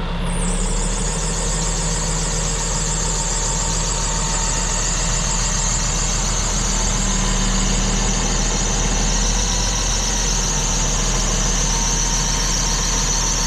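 Caterpillar D6T dozer's diesel engine idling steadily, with a high-pitched whine over it that slowly falls in pitch.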